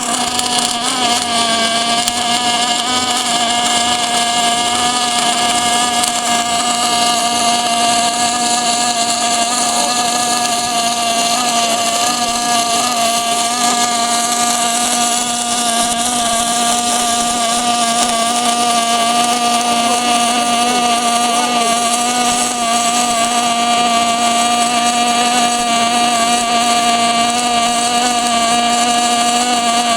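MIG/MAG welding arc burning continuously during a long weld: a steady, unbroken hum over a hiss.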